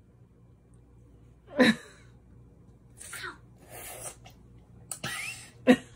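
A child's sudden sharp vocal outburst, like a sneeze or yelp, about a second and a half in, then a few short breathy sounds and another brief cry near the end: reactions to biting into a sour lemon slice.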